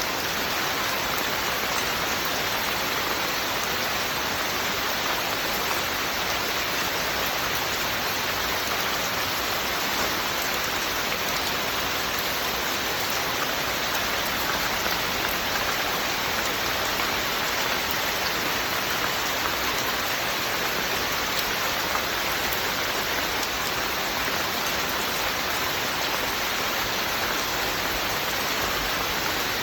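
Steady rainfall, an even hiss of rain with scattered drops pattering on a surface.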